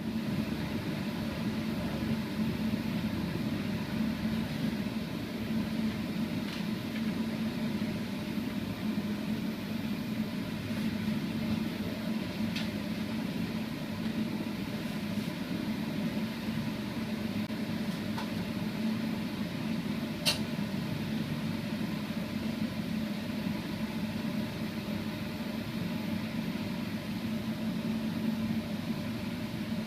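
Spray-finishing equipment running steadily: a constant motor hum with an airy hiss, and a few faint clicks, the sharpest about twenty seconds in.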